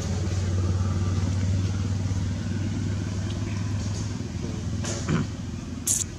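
A motor engine running steadily and dying down over the second half. Two short sharp knocks or clicks come near the end.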